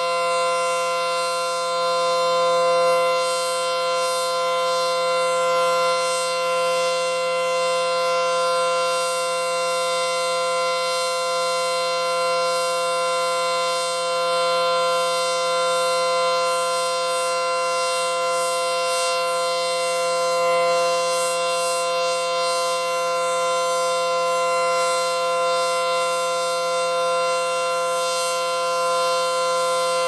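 ACA Banshee 115 outdoor warning siren sounding a steady Full Alert tone at full speed, holding one unchanging pitch with its loudness swelling a little every few seconds.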